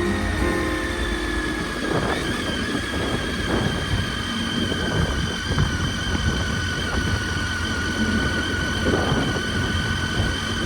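Triumph Tiger 800 XC motorcycle being ridden: a steady rumble of engine and wind with a thin whine that slowly falls in pitch.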